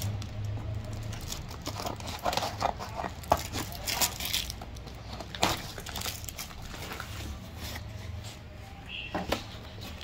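Plastic wrap and packing tape crinkling and cardboard tearing as a courier parcel is ripped open by hand, in irregular rustles with scattered sharp crackles.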